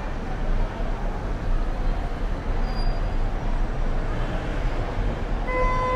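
City street ambience: steady traffic rumble layered with a diffuse crowd of people chattering. A car horn sounds briefly about five and a half seconds in.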